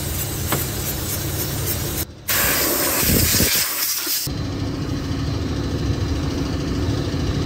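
Aerosol brake cleaner spraying onto a VW Beetle's brake master cylinder and brake lines: two long hisses with a short break about two seconds in, stopping about four seconds in. A steady low hum continues underneath.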